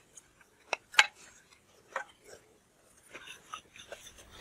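Knife cutting through a green bell pepper held in the hand: a few crisp snaps about a second apart, then quicker, fainter clicking near the end.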